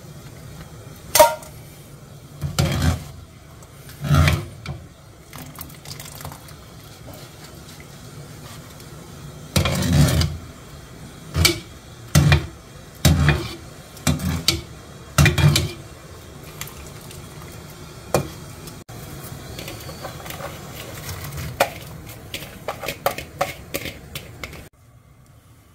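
A metal mesh strainer knocking and clanking against the rims of cooking pots about nine times, one knock ringing briefly, as broth ingredients are lifted out over a simmering pot. Lighter clatter follows as chopped vegetables are tipped into the pot.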